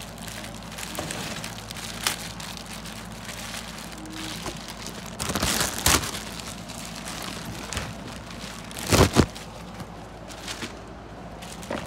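Clear plastic packaging bag crinkling and rustling as it is handled and pulled off a binocular case, with louder bursts of rustling and handling about halfway through and again about three-quarters through.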